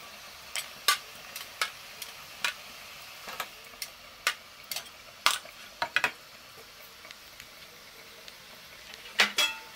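Small stainless steel idli cups clinking against the steel steamer plate as they are lifted off and set down: sharp metallic clinks, scattered through the first six seconds, then a quick cluster near the end.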